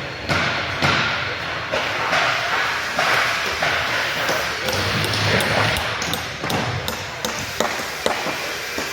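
Carpentry work in a large hall: a steady din of tools and voices, with scattered sharp knocks and taps, more of them in the second half.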